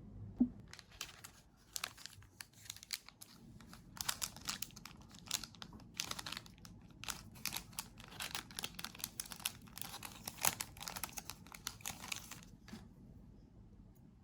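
Packaging wrap crinkling and rustling as it is handled and pulled, a dense run of irregular crackles that stops about two seconds before the end.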